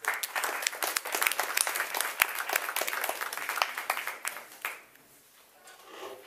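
Audience applauding, dense clapping that fades out about five seconds in.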